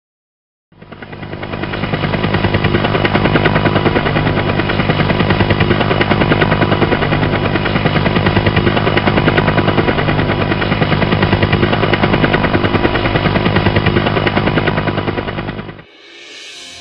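Tractor engine running steadily at close range, with a loud, rapid, even pulsing beat over a low hum. It fades in about a second in and drops away just before the end.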